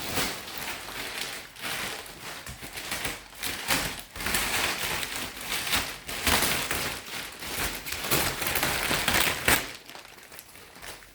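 Thick plastic mattress wrapping crinkling and rustling as it is handled and pulled off a compressed foam mattress, a dense crackle that dies away near the end.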